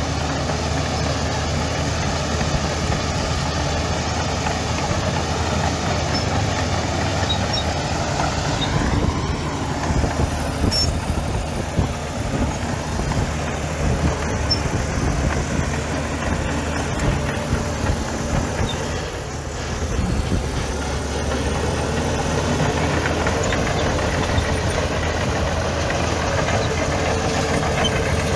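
Heavy diesel engine of earth-moving machinery running steadily, with a brief rise in pitch about a third of the way in and a short lull around two-thirds of the way through.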